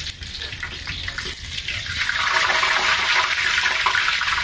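Whole fish frying in hot oil in a cast-iron skillet, a steady sizzle with crackling that grows louder about two seconds in.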